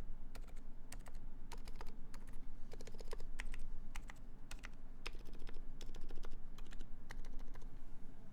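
Typing on a Uni660 split mechanical keyboard with Krytox-lubed Silent Alpaca silent linear switches in a brass plate, under GMK keycaps. The keystrokes are soft and muted, coming in quick runs, and stop just before the end.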